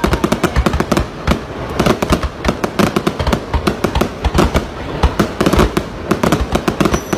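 Fireworks going off in a dense barrage: rapid bangs and crackling, many reports a second without a break.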